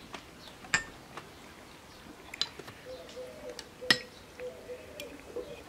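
Metal teaspoons clinking against small glass bowls and tea glasses: a few sharp, short rings about a second apart, the loudest about four seconds in.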